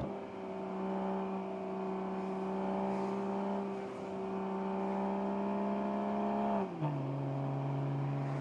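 Stock 2021 Toyota Supra 3.0's B58 turbocharged inline-six running under steady throttle, its note holding nearly level and creeping slightly higher. Near the end the pitch drops sharply as the transmission shifts up a gear.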